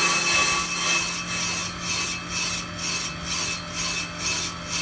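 ProCut on-car brake lathe cutting a brake rotor: the carbide bits scrape across the rusty inner lip of the disc in a rhythmic rasp about twice a second, starting about a second in, over the steady hum of the lathe motor.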